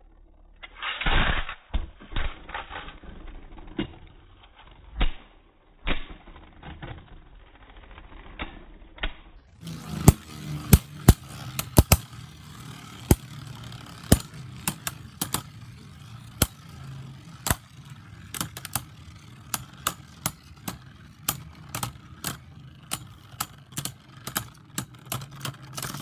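Spinning Beyblade tops clattering in a plastic stadium: irregular sharp clicks and knocks as they strike each other and the bowl, over a steady spinning whir. The first stretch sounds dull and muffled; from about ten seconds in it turns sharper, with clicks every half second or so.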